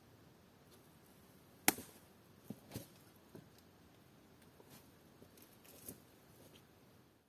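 One sharp knock, then several fainter knocks and clicks spaced irregularly over a quiet background.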